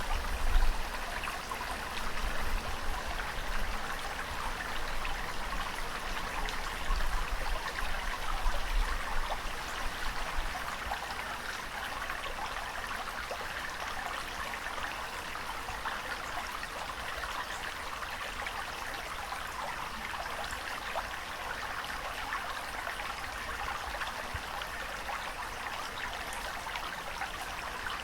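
Running water making a steady, even rush with no rise and fall of waves. Low rumbles come and go during the first ten seconds or so.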